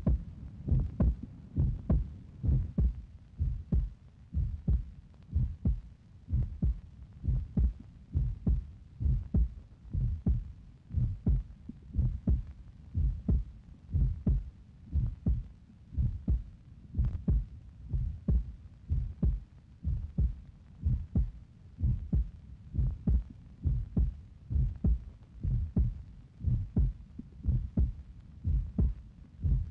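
A steady rhythm of low, heartbeat-like thumps, repeating evenly without pause.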